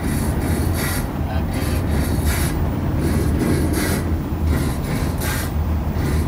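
Steady low rumble of road and engine noise inside a moving truck's cab, with irregular short hissy bursts over it.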